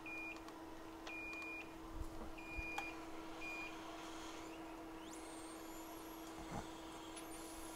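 Short high-pitched electronic beeps from bench equipment, four of them at uneven intervals in the first few seconds, over a steady low hum.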